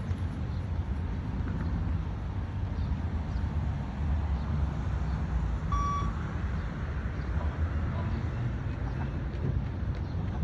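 Steady low rumbling background noise with one short, high electronic beep about six seconds in: the beep-test signal marking the end of a shuttle.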